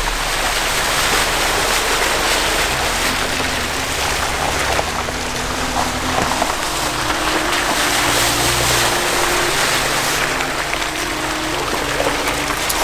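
Jeeps driving through a muddy, water-filled trail rut: a steady wash and splashing of water thrown up by the tyres, with engine sound underneath.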